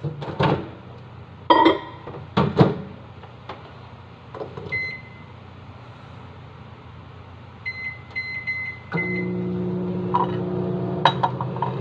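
Microwave oven being set and started to heat a mug of coffee. First come a few sharp knocks, then a single keypad beep and a quick run of about six beeps. About nine seconds in, the oven starts running with a steady hum.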